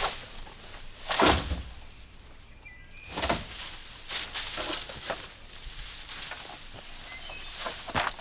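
Leafy bamboo stalks and brush rustling and crashing as a long pole is pulled and swung through them, in irregular bursts, the loudest about a second in and another about three seconds in.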